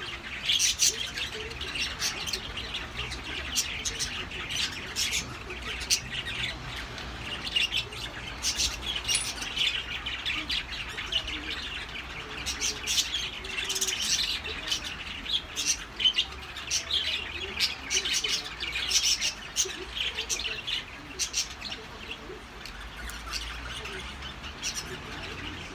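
Many small birds chirping and calling, a busy run of short chirps without a break.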